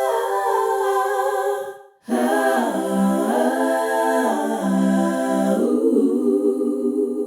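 Outro music of wordless voices singing held chords, one phrase ending about two seconds in, then after a brief gap a second phrase with shifting chords.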